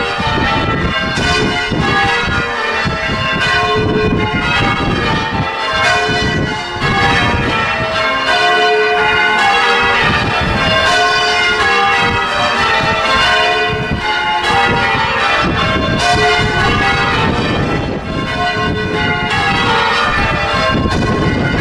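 Church tower bells change ringing: the bells strike one after another in rapid succession, their notes overlapping into a continuous peal.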